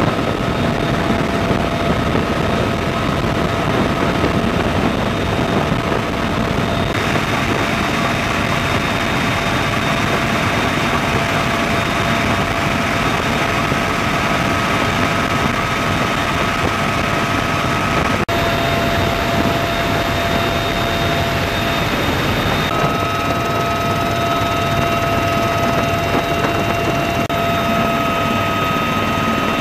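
Helicopter cabin noise in flight from a UH-1Y Venom: a loud, steady din of rotor and turbine with a constant high whine running through it. The sound shifts abruptly a few times where the footage is cut.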